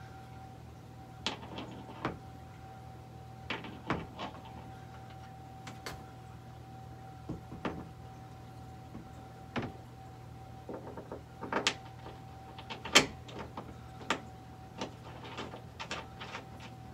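Irregular light clicks and taps of a rigid acrylic print panel and metal wall standoffs as the panel is seated on the posts and the standoff caps are threaded on by hand, with one sharper knock about three-quarters of the way through. A steady faint hum runs underneath.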